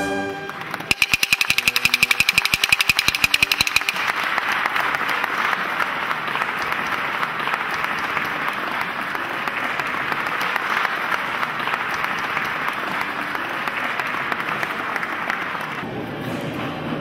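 A fast rattle of sharp knocks for about three seconds, then a crowd applauding steadily, easing off near the end.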